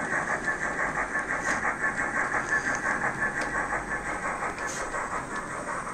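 OO gauge model trains running on the layout: a steady mechanical running sound that pulses about four times a second.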